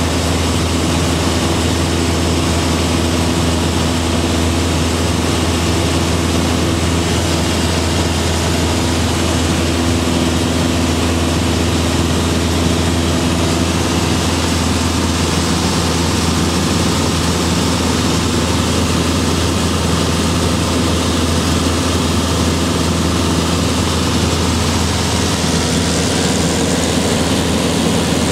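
Cabin sound of a single-engine propeller light aircraft in level cruise: a steady low drone from the engine and propeller with a hiss of airflow over it, unchanging throughout.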